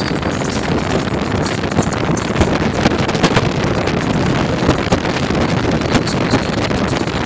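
Wind buffeting the microphone of a phone filming from a moving car, over the steady rush of the car's road noise.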